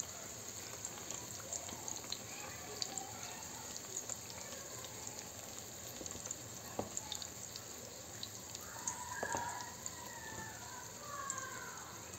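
Tomato and pepper sauce for karnıyarık simmering in a frying pan, bubbling with many small scattered pops and crackles.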